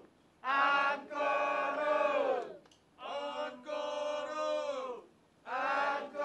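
A group of voices chanting in unison in three long, drawn-out calls of about two seconds each, with short pauses between them.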